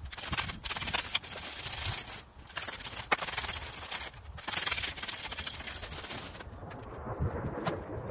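Garden rake dragged through grass and soil: crackling, scraping strokes, three long pulls of about two seconds each, then quieter rustling near the end.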